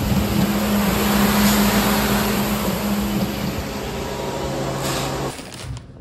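Yellow peas being unloaded from a semi's hopper trailer into a grain conveyor: a steady machine hum under a constant rush of flowing grain. It stops abruptly a little after five seconds in.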